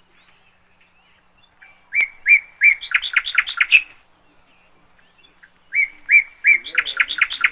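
A bird singing: two phrases of quick repeated notes that speed up, each about two seconds long, the second starting about two seconds after the first ends.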